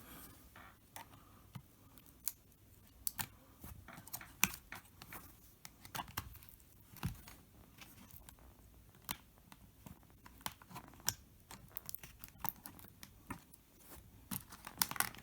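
Irregular small clicks, taps and light scrapes of hands working a laptop battery loose from inside the open plastic case.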